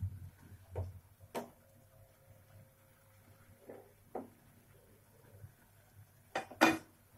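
A few sharp clinks and knocks of a stirring spoon and a glass pot lid against a steel cooking pot as the pot is covered to simmer, the loudest pair of clinks coming near the end.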